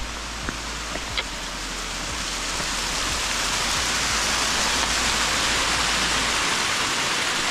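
Waterfall and brook water rushing steadily, growing louder about two to three seconds in and then holding; two light clicks near the start.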